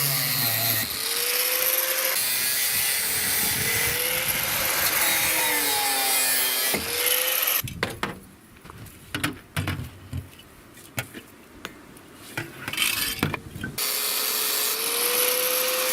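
A power tool cutting into the steel shell of a refrigerator compressor, its motor pitch dipping and recovering under load. About seven and a half seconds in it stops for several seconds of scattered knocks and scraping, then starts cutting again near the end.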